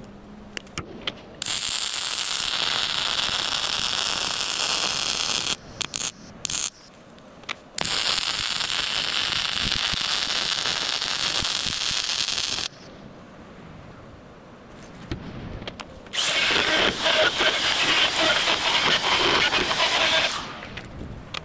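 MIG welding arc crackling in three runs of a few seconds each, with short sputtering starts and quieter gaps between. A back-gouged crack in a steel snow plow bracket is being welded up.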